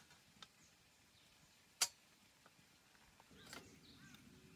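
Steel parts of a round camping fire pit being set in place: a few light metal clicks, one sharp clink a little under two seconds in, and a brief metallic scrape with some ringing near the end.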